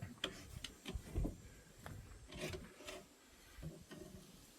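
Faint, scattered knocks, clinks and scraping of hand tools against metal engine parts while a big-block engine's cylinder head is pried and unbolted, with a louder thump about a second in.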